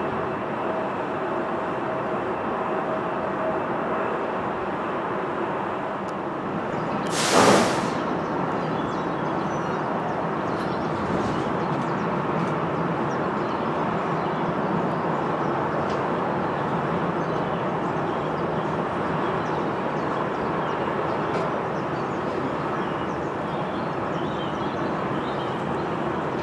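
Jet airliner engines at taxi power: a steady rush of engine noise from a Bombardier CRJ-900 and then an Airbus A320 rolling along the taxiway. A short, loud burst of noise about seven seconds in.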